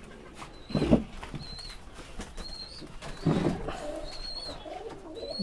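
Giribaz pigeons cooing in a loft, with a short high chirp repeating about once a second and a low muffled thump about a second in.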